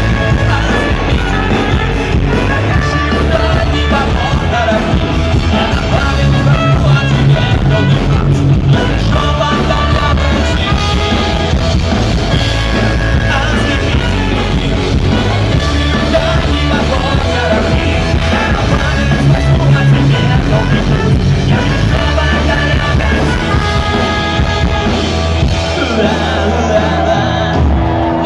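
Rock band playing live at full volume, with drums, bass and guitars under sung vocals.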